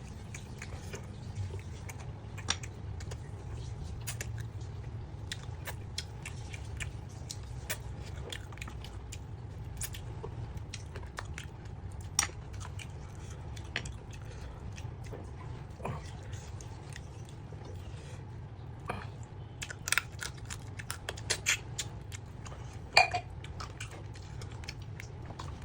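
Close-up chewing and biting of chicken vuna, with scattered small clicks and crackles and a few sharper taps over a steady low background hum.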